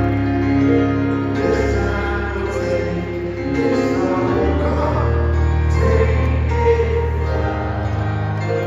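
Live band music led by a grand piano, with bass and a sung vocal line, heard through an arena sound system.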